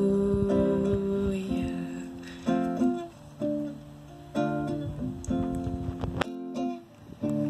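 Acoustic guitar playing chords in an instrumental passage of a worship song, a new chord struck roughly once a second, with a short break just after the six-second mark.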